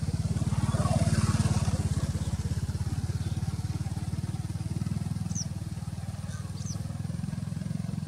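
A small engine running steadily with a fast even pulse, loudest about a second in. A few short, high bird chirps come in the second half.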